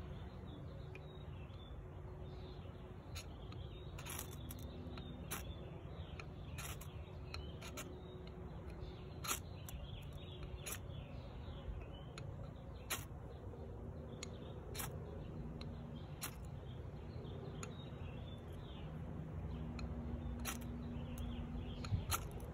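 Short, sharp scrapes of an LT Wright Kelsmuk knife's spine against a hard ferrocerium rod, small controlled strokes one every second or two, over a steady low background rumble.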